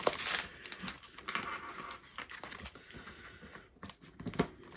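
Scattered light clicks and rustling as a diamond painting canvas and its plastic packaging are handled.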